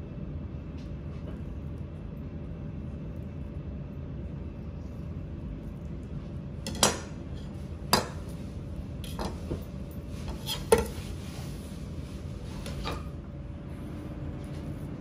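Sharp knocks and clinks of a knife and fish being put down on a plastic cutting board, about six of them around the middle, over a steady low hum.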